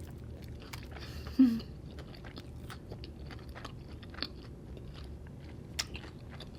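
Close-miked chewing and biting of food, with many small crunchy clicks and a louder bite sound about a second and a half in.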